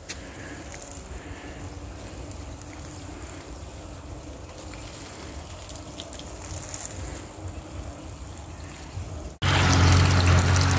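Water from a small rotating lawn sprinkler spraying over grass, a faint steady hiss. About nine seconds in it cuts suddenly to water gushing from a hose into a tree's basin, much louder, with a low steady hum under it.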